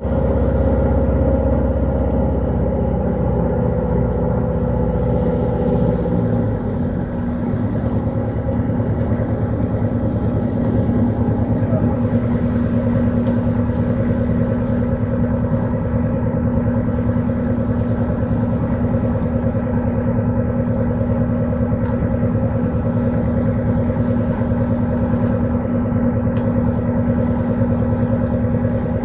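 A boat's engine running steadily, its note changing about seven seconds in.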